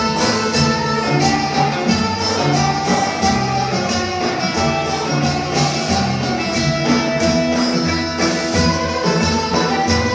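Instrumental break of a Turkish folk song (türkü), with no singing: melodic instruments play over a steady percussion beat.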